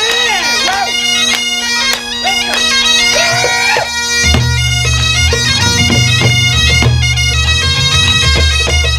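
Bagpipes playing a tune over their steady drone, with drums keeping time. About four seconds in, a deep, loud low part joins the band.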